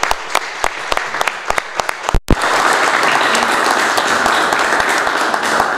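A small group applauding: a few separate claps for the first couple of seconds, a brief cut-out in the sound, then steady full applause.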